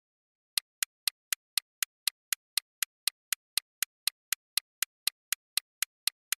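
Quiz countdown-timer sound effect: a sharp clock-like tick about four times a second, starting about half a second in.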